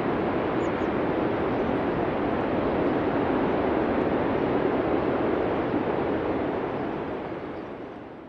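Steady rushing noise, even and without any tone, that fades out over the last two seconds.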